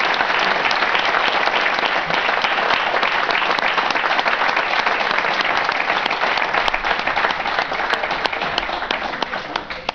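Audience applauding, thinning to a few scattered claps near the end.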